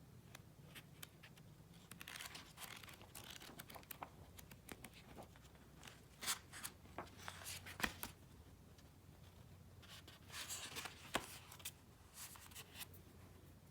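Faint paper rustling and crisp clicks from the pages of a paperback book being handled and turned. The rustling comes in several short spells, with the sharpest clicks about six, eight and eleven seconds in.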